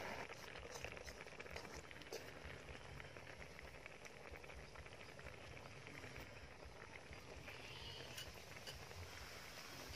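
Faint bubbling of eel and banana-flower soup simmering in a metal wok over a wood fire, with many small pops and a few sharper clicks scattered through it.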